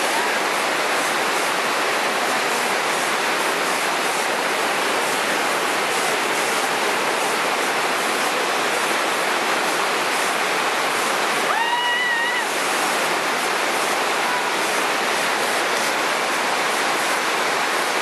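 Waterfall water rushing over rock, a steady even rush with no breaks. About two-thirds of the way through, a short pitched call or whistle of under a second sounds above it.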